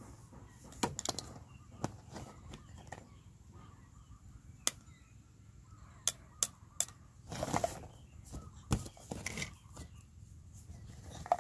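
Plastic toy kitchen pieces clicking and knocking as a toddler handles a toy cucumber and knife: a handful of separate sharp clicks spread a second or more apart, with brief rustling in between.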